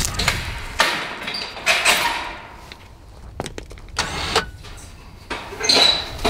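Scattered clunks, scrapes and clicks from handling a utility vehicle and its metal mesh trailer, with a short metallic ring near the end and a louder clank right at the close.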